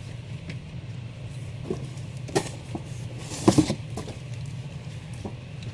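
Comic books and a cardboard shipping box being handled: a few short rustles and knocks, the loudest about three and a half seconds in, over a steady low hum.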